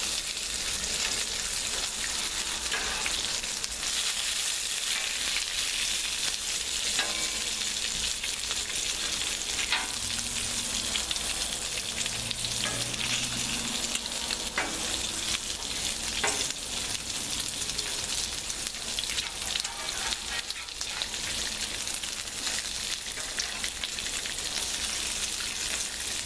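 Bacon frying on a Blackstone flat-top griddle: a steady sizzling hiss with occasional small crackles and pops.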